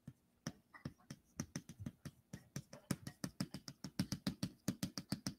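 Chalk tapping on a blackboard as a row of data points is dotted onto a graph: short sharp ticks, a few at first and then several a second.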